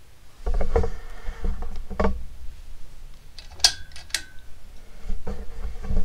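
Evergo 'Banana Fan' ceiling fan motor switching on about half a second in, with a steady low electrical hum. Sharp clicks and rattles come with the switch-on and again a few times after.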